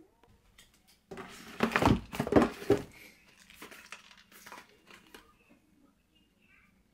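A cardboard frozen pot-pie box being picked up and handled: loud rustling and scraping for about two seconds, starting a second in, then a few lighter rustles and taps.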